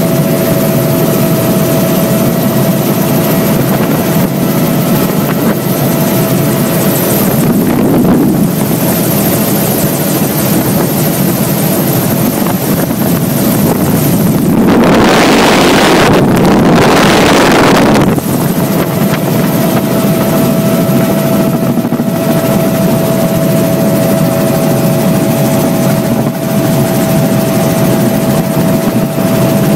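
Helicopter in flight heard from inside the cabin: steady engine and rotor noise with a steady whine over it. About halfway through, a louder rushing noise swamps it for about three seconds.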